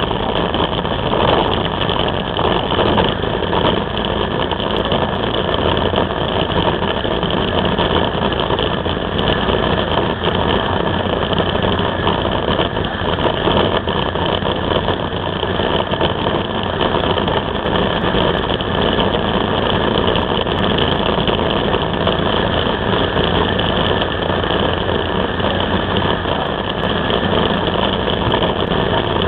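Can-Am Spyder three-wheeled motorcycle's engine running steadily at cruising speed, heard through a camera mounted on the bike along with the even rush of riding at road speed.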